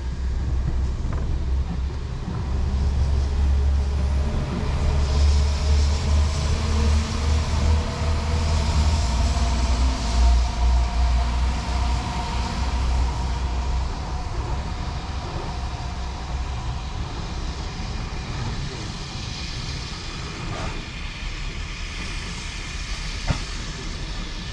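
Steam locomotive running slowly toward the station, with a low rumble that is louder in the first half. Several drawn-out tones sound in the middle, and there is a single sharp click near the end.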